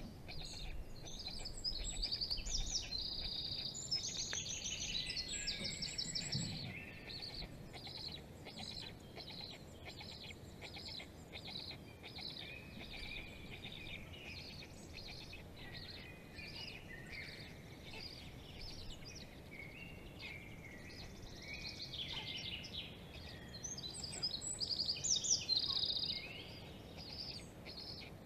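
Songbirds singing in a forest: overlapping chirps and trills from several birds, busiest near the start and again near the end, with one bird repeating a short high note at an even pace in between.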